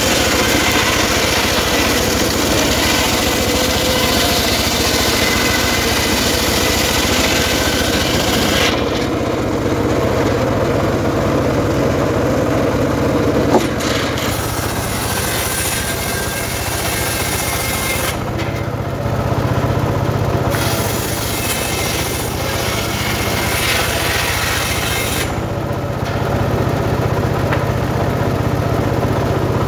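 Homemade engine-driven circular sawmill running, its large blade ripping a log into planks: a steady engine drone under the noise of the blade cutting through wood. The cutting noise breaks off and returns abruptly several times.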